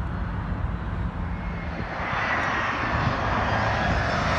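Low road-traffic rumble, then about halfway through the rising noise of an Embraer E175 regional jet on short final approach, its GE CF34 turbofans getting louder with a thin steady whine.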